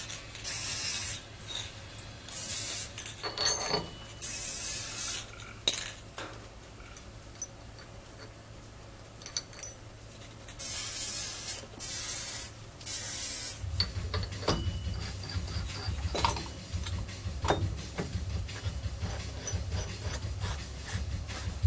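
Aerosol spray can hissing in several short bursts, with metal parts clicking and rubbing in between. A low steady hum comes in about two-thirds of the way through.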